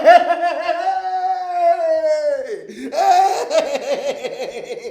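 A man laughing excitedly: first one long held cry that falls away after about two and a half seconds, then a burst of pulsing laughter.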